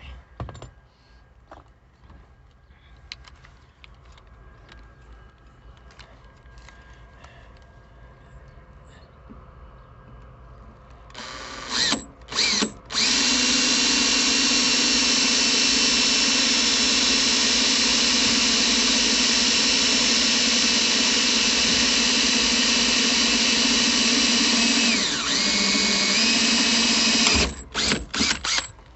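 Electric drill boring a pilot hole through the sheet metal of a 1955 Chevy pickup's cab for a seat-belt anchor rivet. After some faint handling sounds, two short trigger blips about eleven seconds in, then a steady run of about fourteen seconds whose pitch sags briefly as the bit loads near the end, and a few quick blips before it stops.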